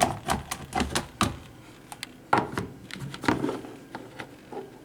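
Quick plastic clicks and knocks from the filter basket of a Black & Decker drip coffee maker being handled, a rapid run in the first second, then a few scattered knocks.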